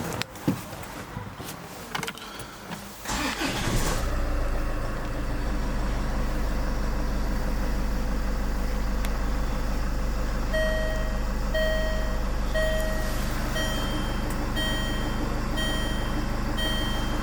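Land Rover Freelander's engine is started about three seconds in after a few clicks, then settles into a steady idle. From about ten seconds in, a dashboard warning chime beeps about once a second over the idle.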